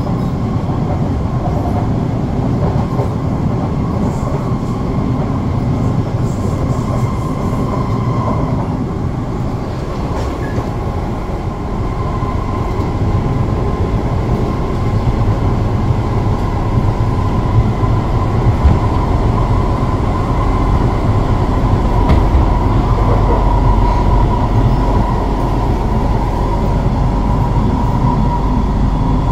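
Cabin noise inside an SMRT C651 electric train running at speed: a steady low rumble of wheels on rail with a thin high tone over it, growing a little louder about halfway through.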